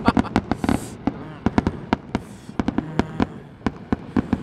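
Aerial fireworks crackling overhead: a dense run of sharp crackles through the first second, then scattered pops and crackles thinning out.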